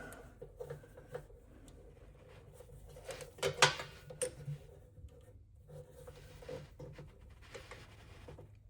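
Faint handling noises: scattered light clicks and rubs, with a sharper knock about three and a half seconds in, over a faint low steady hum.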